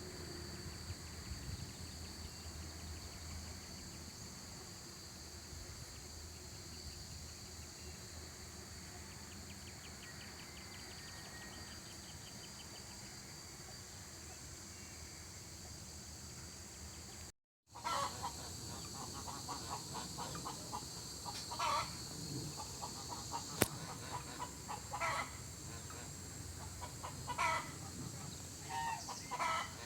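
Steady high insect chirring over a low background hum. After a brief dropout about halfway through, farmyard fowl call in a handful of short bursts, with one sharp click among them.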